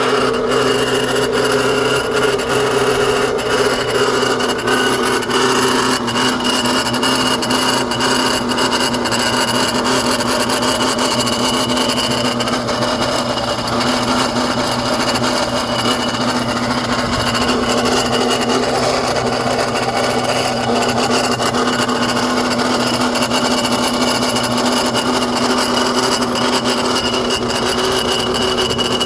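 BMW N54 twin-turbo inline-six engine running with a steady grinding noise, which the owner suspects may come from the AC compressor.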